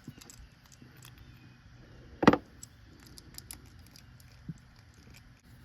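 Light clicks and clinks of small metal power steering pump parts being handled during disassembly, with one sharp clunk a little over two seconds in.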